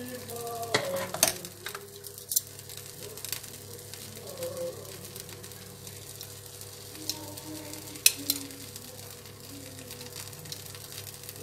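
Bánh khọt batter sizzling in a multi-cup pan, with a few sharp clicks of metal utensils against the pan, the loudest about a second in and another around eight seconds in.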